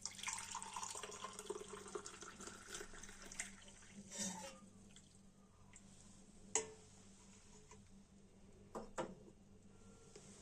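Hot kadha, a spiced herbal decoction, poured through a strainer into a glass: a trickling pour that rises slightly in pitch for about three seconds, then a few drips and light clicks.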